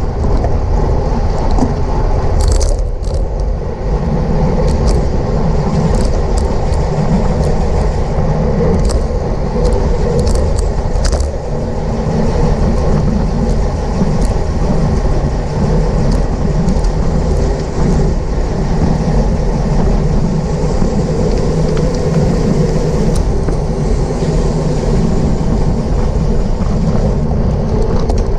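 Steady wind rushing over a racing bicycle's onboard camera microphone at speed, mixed with road and tyre noise, with a few sharp clicks.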